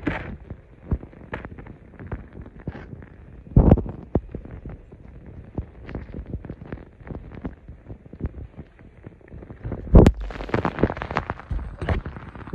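Muffled clicks, pops and knocks from a phone's microphone held underwater in a stream, with a heavy thump about three and a half seconds in. About ten seconds in comes another heavy thump, then brighter, busier water noise as the phone is lifted out of the water.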